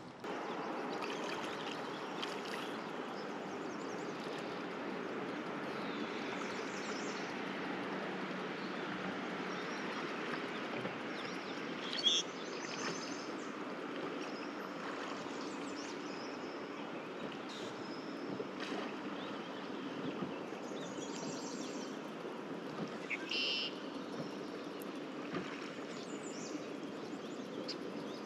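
River water running steadily over a shallow, rocky streambed, with a few short high chirps over it and one brief sharp knock about twelve seconds in.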